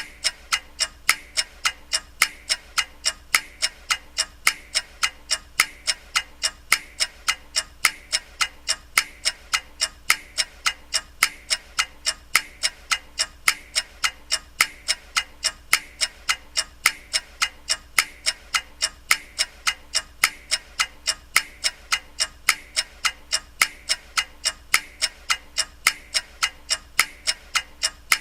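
Clock ticking with a steady, even run of sharp ticks, a couple per second.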